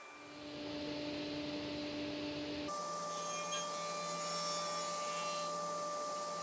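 Sliding table saw running, its blade spinning and cutting through a pine board: a steady whine over the hiss of the cut. The sound changes abruptly a little under three seconds in.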